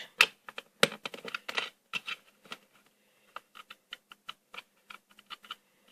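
Irregular sharp clicks and taps of small hard objects being handled. The loudest are in the first two seconds, with fainter, quicker clicks later.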